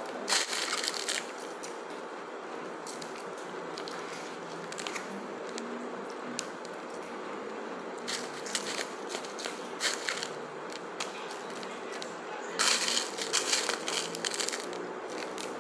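A plastic fork scoops and scrapes food in an aluminium foil takeaway tray, making the foil crinkle and crackle. The crackling comes in several bursts: right at the start, around eight to ten seconds in, and most strongly near the end.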